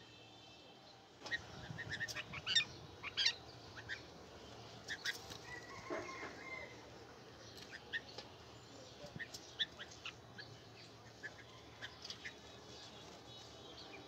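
A small flock of red-vented bulbuls feeding on rice in a metal tray: scattered quick taps of beaks and feet, wing flutters, and a few short chirps.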